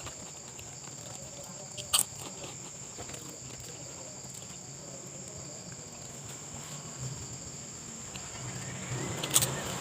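Steady high-pitched chirring of insects, cricket-like, with two sharp clicks: one about two seconds in and one near the end.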